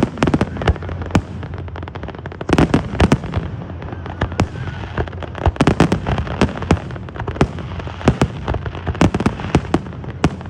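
Fireworks going off: rapid pops and sharp bangs in dense volleys of crackling, with short lulls between the volleys.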